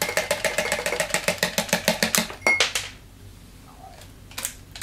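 A fast, even run of clicks, about ten a second, for a little over two seconds, followed by a short high beep and a few last clicks.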